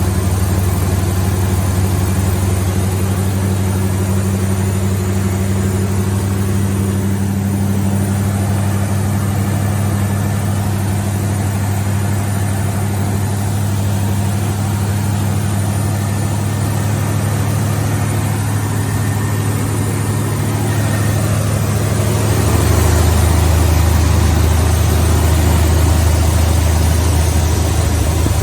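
Chevy 350 small-block V8 in a 1982 C20 pickup, fed from a gas can, idling steadily. About 22 seconds in it gets louder with a deeper tone and stays there.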